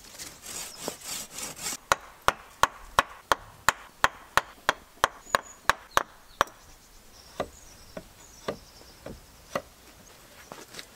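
A hand blade working a wooden stick: soft scraping strokes at first, then a steady run of sharp knocks on the wood, about three a second, thinning to a few slower knocks after about six seconds.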